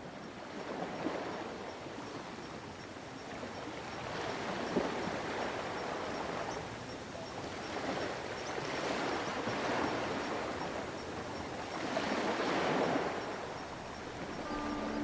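Ocean surf: waves washing in, swelling and falling away about every three to four seconds, four swells in all.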